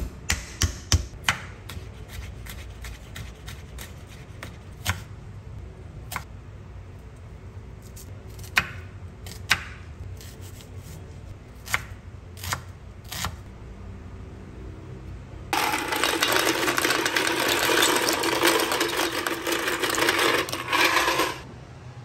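A chef's knife tapping on a bamboo cutting board as garlic and a red onion are cut: single knocks spaced a second or more apart, with a quick cluster near the start. About fifteen seconds in, a loud steady hiss of food cooking in a pot takes over for about five seconds and then stops abruptly.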